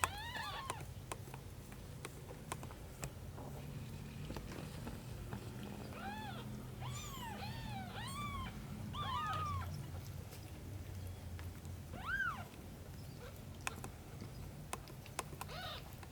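Young kittens meowing: short, high-pitched rising-and-falling calls, a quick string of them in the middle and one louder call near the end.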